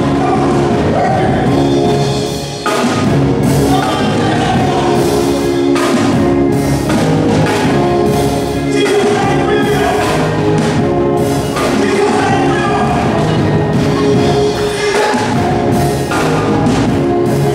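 Live gospel music: a male lead singer on a microphone over a band with drums, with backing singers.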